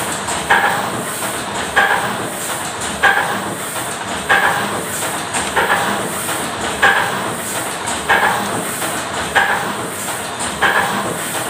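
Offset printing press machinery running, with a regular clunk and swish about every 1.3 seconds over a steady mechanical noise.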